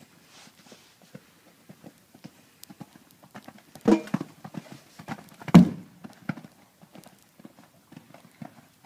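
Hoofbeats of a Connemara gelding cantering on a sand arena, with two much louder thuds about four and five and a half seconds in as it jumps a fence.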